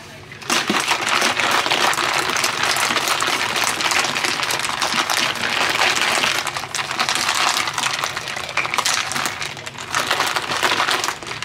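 A plastic Gatorade squeeze bottle of water and drink powder shaken hard, the liquid sloshing and rattling inside it for about ten seconds; it starts about half a second in and stops just before the end.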